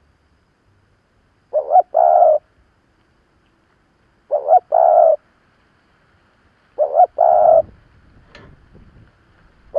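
Spotted dove cooing: three repeated phrases, each two short notes followed by a longer held note, spaced about two and a half to three seconds apart.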